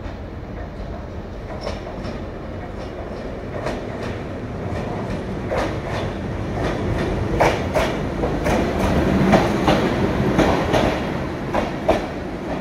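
Class 90 electric locomotive running past on its own, its wheels clicking irregularly over rail joints and pointwork with a steady rumble underneath. It grows louder as it approaches, is loudest as it passes about eight to eleven seconds in, then eases slightly.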